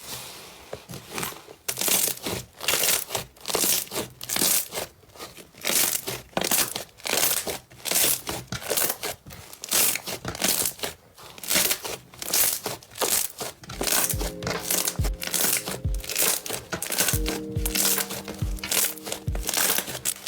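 Slime being squeezed and pressed by hand, making repeated crackling, popping squishes about twice a second. Background music with held notes and a low beat comes in about two-thirds of the way through.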